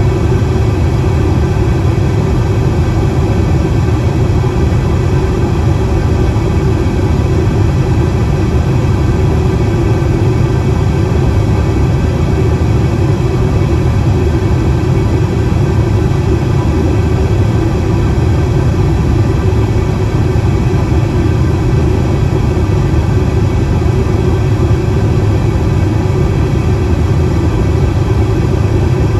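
Airliner cabin noise in flight: a loud, steady drone of engines and rushing air, deepest and strongest in the low range, unchanging throughout.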